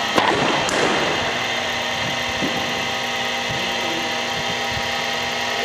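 Steady mechanical hum of a running motor, with a sharp knock about a fifth of a second in.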